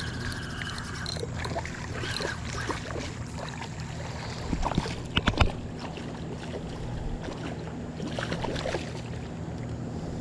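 A boat motor running with a steady low hum, with a few sharp knocks about five seconds in.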